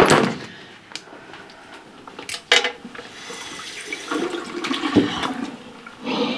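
Tap water running into a ceramic washbasin and splashing as a face is rinsed, with sharper splashes about two and a half and five seconds in.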